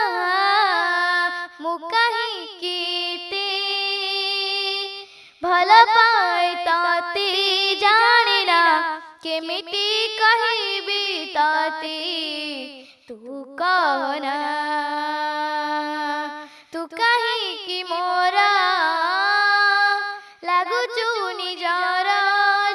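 A single high voice singing unaccompanied into a microphone: long melodic phrases with bending, ornamented notes, broken by short pauses.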